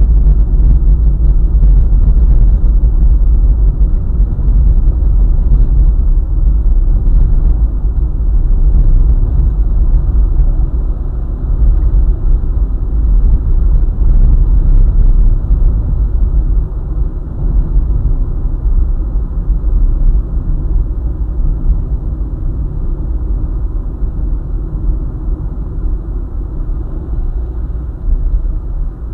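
A car driving along a highway: a steady, loud low rumble of road, tyre and engine noise.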